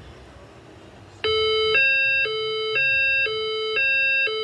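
A fire alarm voice-evacuation speaker sounds a two-tone hi-lo alert signal, starting about a second in. It switches between a lower and a higher pitch about twice a second. This is the alert tone that marks a reported event in the building while the report is being verified.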